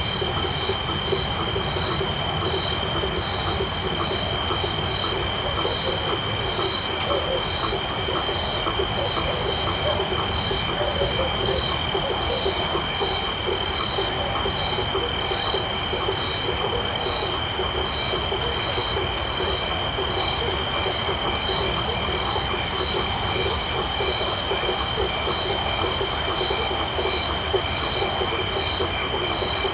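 Tropical night chorus of insects and frogs. Steady high insect trills run under an evenly pulsing call that repeats a little more than once a second, over a dense chatter of frog calls.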